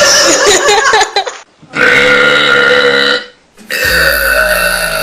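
A girl's loud, drawn-out belches, one after another. The first trails off about a second in, a second long, pitched belch lasts about a second and a half, and a third starts near the end.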